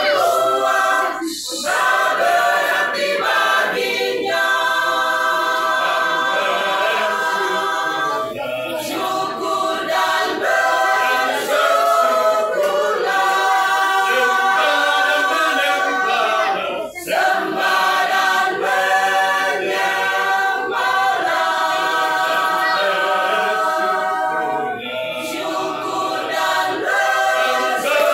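Masamper choir of men and women singing a cappella in several-part harmony. The singing comes in long held phrases with short breaks between them every few seconds.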